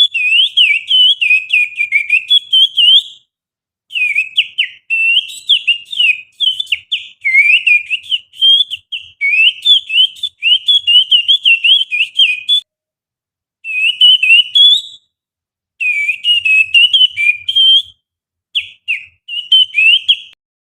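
Finger whistle imitating an oriental magpie-robin's (kacer) song: quick, chirping, warbling phrases of high notes sliding up and down, in several runs broken by short pauses, stopping just before the end.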